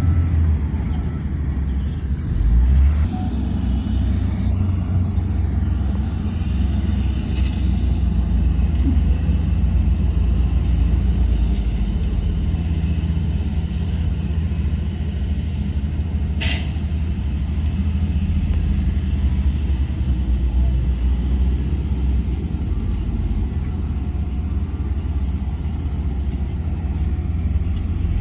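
Heavy diesel earthmoving machinery running with a steady low rumble, with one brief sharp noise a little past halfway through.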